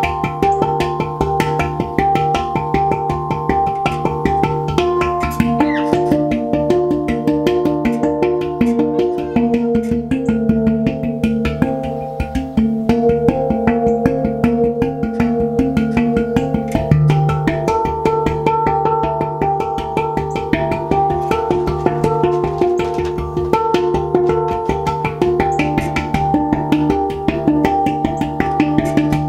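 Handpan played with the fingers and palms: a fast, continuous run of ringing steel notes over a sustained low tone.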